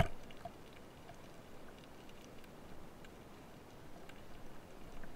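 A speargun firing underwater: one sharp, loud crack right at the start that dies away quickly. Faint scattered ticks and crackle of the underwater background follow.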